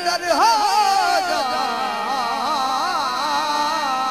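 Qawwali: a singer's wordless, wavering melismatic line over sustained harmonium tones.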